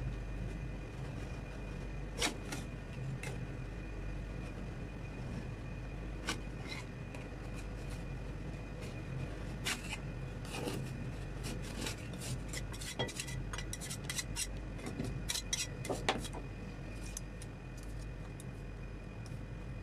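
Metal spatulas scraping and clicking against the frozen steel plate of a rolled ice cream pan as the ice cream is scraped up into rolls. The clicks come thickest in the second half, over a steady low hum.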